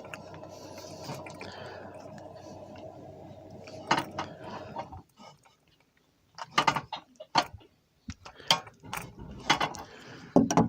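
Hand tools clicking and clanking against metal propane fittings as the hoses are tightened back on. A steady hum with a few clicks fills the first half and cuts off suddenly about five seconds in; then comes a run of sharp, separate metallic clicks.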